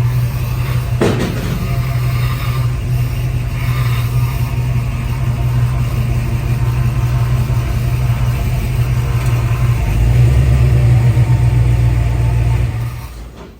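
Chevy C10 pickup's small-block V8 running under way with a steady low drone, a single knock about a second in, growing louder about three quarters of the way through before dropping away suddenly near the end.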